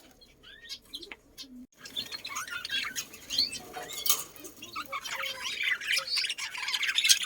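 A flock of small birds chirping and squawking, many calls overlapping. Only a few faint chirps at first, then the chattering starts up suddenly and loudly about two seconds in.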